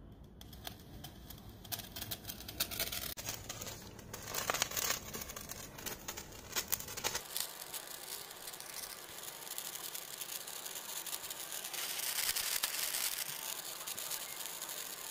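A long 75 cm Maharaja sparkler catching alight at a candle flame, crackling and spitting. After about seven seconds it settles into a steadier fizzing hiss with scattered crackles as it burns.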